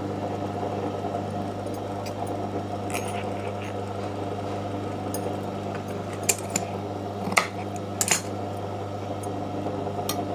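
A steady low hum runs throughout. About six to eight seconds in come a few sharp clicks and taps, the sound of the fabric and small objects being handled at the sewing machine table.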